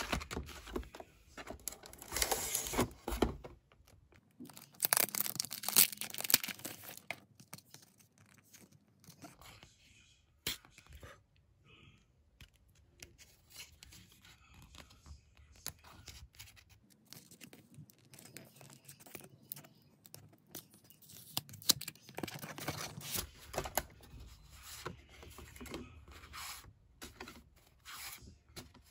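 Paper envelope and mask-sheet sachets being handled and torn open by hand: rustling with several sharp tearing rips, loudest a few seconds in and again about three-quarters of the way through.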